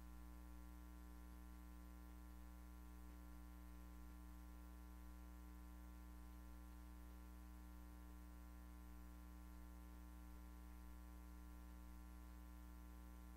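Near silence: a faint, steady electrical hum with its overtones and a light hiss, unchanging throughout.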